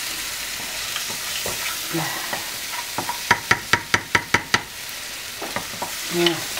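Prawns, clams and onion sizzling in oil in a frying pan while a wooden spoon stirs them, frying off the flour for the sauce. Partway through, a quick run of about eight sharp clacks as the spoon knocks in the pan.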